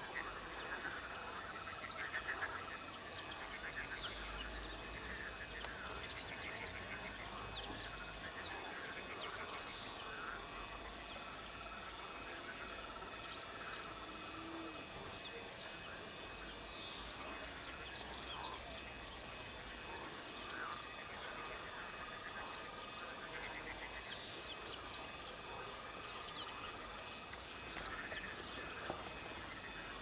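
Outdoor ambience of many small birds chirping and frogs calling by the water, with short trills held a second or two. A low rumble comes and goes underneath.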